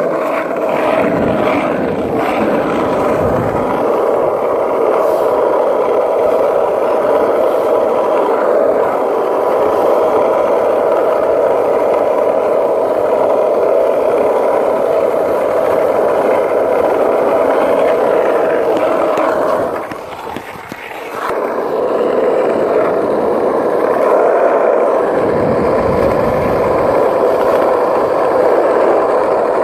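Skateboard wheels rolling fast over rough asphalt: a steady rumble, with a brief lull about twenty seconds in.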